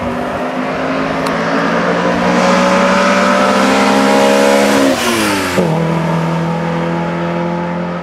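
Opel Ascona 400's 2.4-litre sixteen-valve four-cylinder rally engine pulling hard, its note climbing in pitch and growing louder as the car comes on. About five seconds in, the pitch drops sharply and then settles to a steady lower note.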